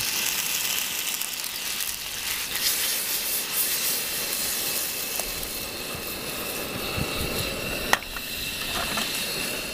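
Sliced potatoes and onions with dried rosemary sizzling and bubbling in butter in a frying pan, a steady hiss, with one sharp knock about eight seconds in.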